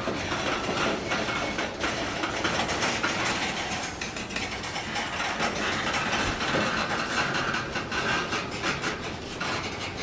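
Freight train covered hopper cars rolling slowly past: a steady rumble of steel wheels on rail, with frequent clicks and knocks.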